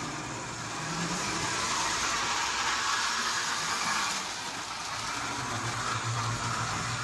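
Electric O gauge toy train running on its track: the locomotive's motor and wheels make a steady, somewhat noisy whirr, with a faint low hum underneath.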